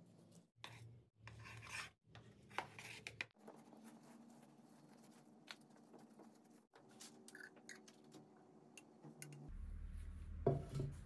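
Gloved hands scooping and pressing dry potting mix into a terracotta pot: soft rustling and scraping with many small clicks, broken by abrupt cuts, and a louder knock near the end.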